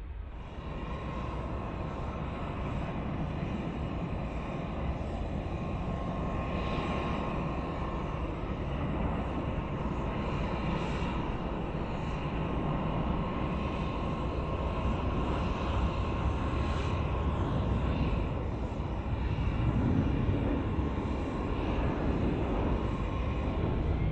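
Boeing 787 Dreamliner landing, its jet engines running at low approach power: a steady whine over a deep rumble that grows gradually louder.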